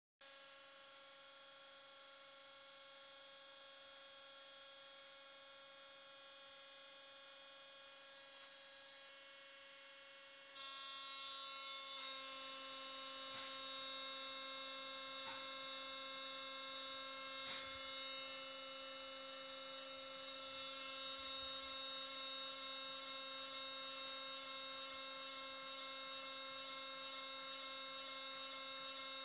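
A 1.5 kW hydraulic power unit runs with a steady electric hum and whine made of several fixed pitches. It grows louder in two steps, about ten and twelve seconds in, and a few faint clicks come after.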